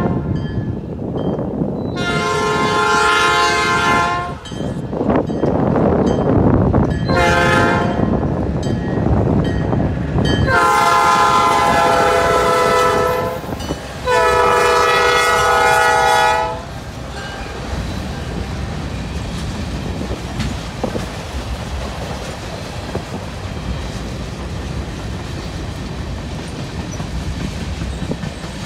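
U.S. Sugar EMD GP11 locomotive's air horn blowing a long blast, a short one, then a long blast broken once, the grade-crossing signal, over the heavy rumble of the diesel as it draws near. From about 17 seconds in, the tank cars roll by with a steady clatter of wheels over the rail joints.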